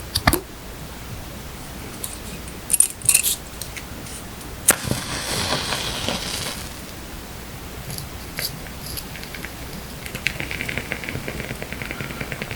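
Paper stationery being handled: a few sharp taps and clicks, then a rustling swish of paper for a second or two about five seconds in. From about ten seconds in, a rapid, fine crackling sets in.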